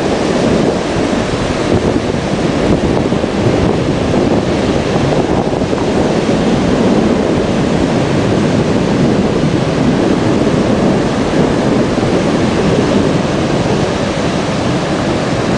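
Sea surf washing steadily, mixed with wind buffeting the microphone.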